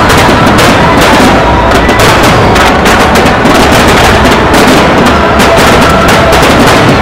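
A dense, unbroken barrage of aerial firework shells bursting one on top of another, with music playing along.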